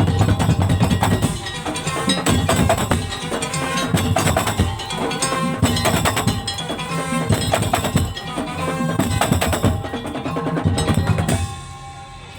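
Madurese tong-tong music: a percussion ensemble of wooden slit drums and drums playing a fast, dense rhythm. It gets quieter about a second before the end.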